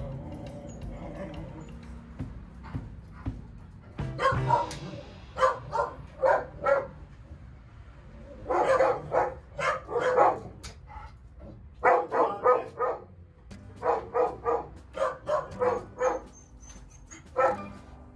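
A dog barking in runs of short, quick barks, starting about four seconds in and coming in several bursts until near the end, over faint background music.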